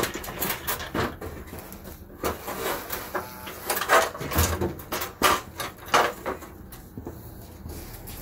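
A fibreglass stepladder being folded and picked up: a run of irregular knocks, clacks and scrapes as its metal spreader braces fold and its legs bump together.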